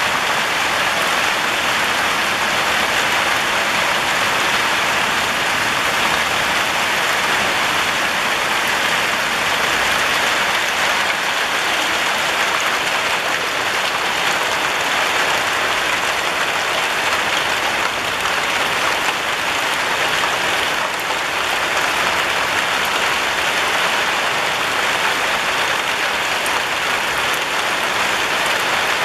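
Steady rain falling on tiled rooftops: an even, unbroken hiss that holds at the same level throughout.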